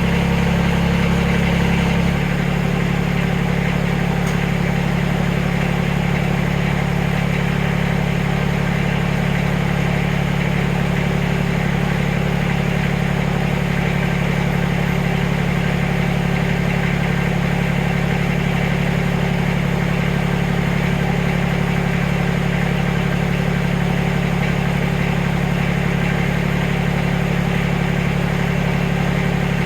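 Backhoe engine running steadily at a constant speed. Its low rumble eases slightly about two seconds in.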